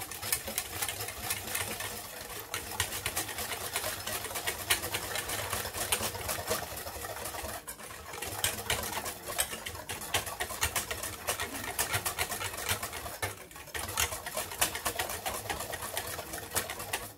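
Wire balloon whisk beating a thin milk and cornstarch mixture in a stainless steel saucepan: a fast, steady rattle of the wires against the pan and the liquid, with brief pauses about 8 and 13 seconds in.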